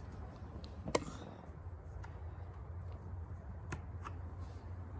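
Plastic oil filler cap on a Chevrolet 5.3 V8's valve cover being gripped and twisted off: faint handling noises with two sharp clicks, one about a second in and one near the end, over a steady low hum.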